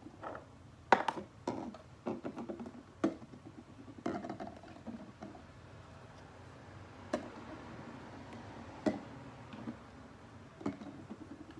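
Empty plastic school-glue bottles being handled and set down on a table one by one: a series of light, sharp knocks, the loudest about a second in, with soft handling rustle between.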